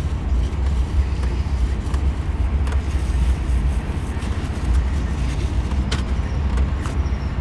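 Car engine idling, heard from inside the cabin as a steady low rumble, with a few faint clicks.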